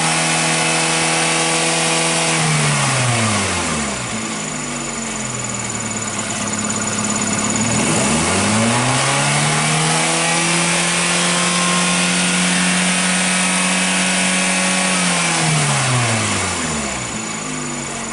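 Kia Rio's four-cylinder 16-valve DOHC petrol engine held at high revs in a free-rev test, dropping back to idle about three seconds in. It is revved up again after a few seconds, held high and steady for about six seconds, then falls back to idle near the end.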